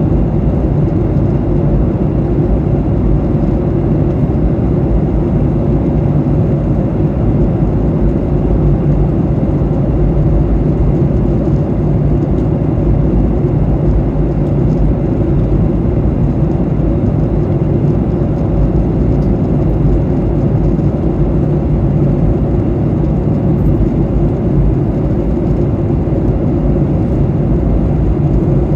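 Boeing 737-800 in flight heard from inside the cabin: a steady drone of engine and airflow noise, strongest in the low range, unchanging throughout.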